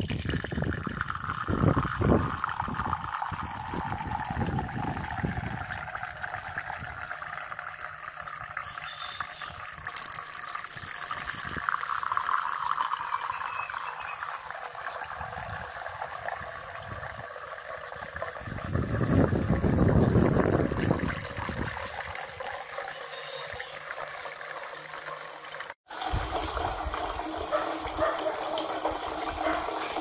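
Small decorative cement fountain running: a thin stream of water pouring from a spout in a pot and splashing steadily into the pool below. A few low rumbles sound in the first few seconds, with a louder one about twenty seconds in.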